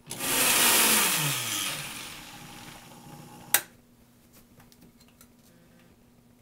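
High-speed countertop blender running on a batch of tomatoes, sun-dried tomatoes, olive oil and water. It starts loud, the motor pitch falls and the sound fades over about three seconds, then there is a sharp click about three and a half seconds in.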